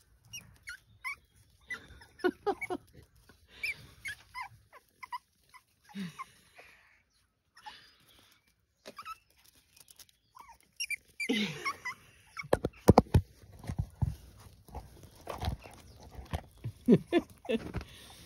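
Young puppy chirping in many short, high-pitched squeaks and whimpers while stuck below a step too high for it to climb. A few loud thumps come about two-thirds of the way through.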